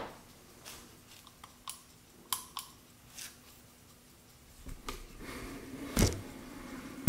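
Handling of an antique pocket watch: a few small, irregular clicks, then rustling handling noise with one loud thump about six seconds in as the watch is moved.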